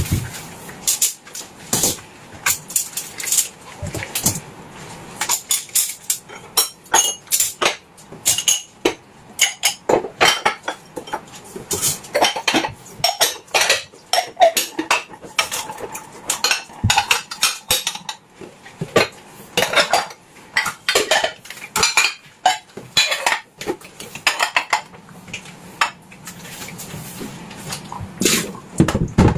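Dishes and cutlery clinking and clattering as they are handled, with many irregular knocks and chinks, some ringing briefly.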